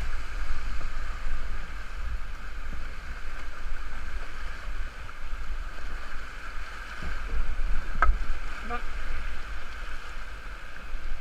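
Rushing whitewater of a river in flood, heard from a kayak running rapids: a steady rushing noise with a deep rumble underneath. A single sharp knock comes about eight seconds in.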